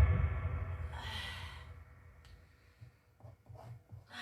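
A person's heavy sighing breaths: a loud exhale at the start that fades over about a second, a second breath about a second in, then only faint breathing.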